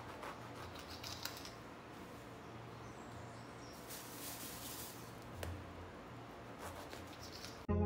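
A knife sawing through crusty bread rolls on a stone counter: faint scraping and crackling of the crust, with a few light clicks of the blade. Music starts abruptly at the very end.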